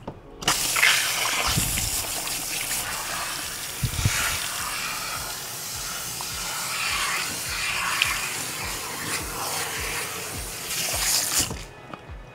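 Salon shampoo-bowl spray hose running, water hissing steadily over hair and into the basin. It comes on suddenly about half a second in and shuts off shortly before the end.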